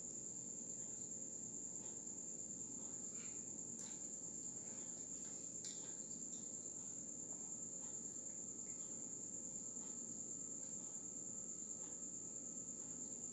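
A steady high-pitched whine, with faint soft crunches of chewing crisp fried turon now and then.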